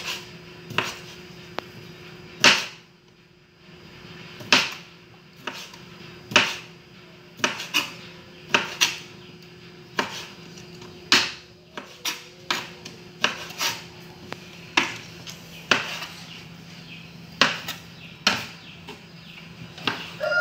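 Kitchen knife chopping through smoked calabresa sausage onto a plastic cutting board: sharp knocks of the blade on the board, irregular, about one a second. A faint steady hum sits underneath.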